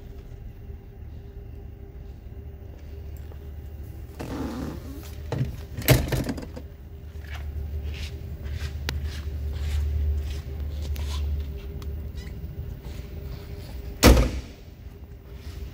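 The driver's door of a 1969 Dodge Coronet Super Bee is pushed shut near the end with one solid slam, the loudest sound here. An earlier thump about six seconds in and some light knocks come from around the car's interior, over a steady low hum.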